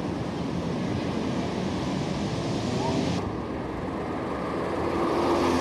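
Wind and surf rushing on a camcorder microphone by the sea, cut off abruptly about three seconds in by the quieter hum of a seafront road, with a car engine growing louder as it approaches near the end.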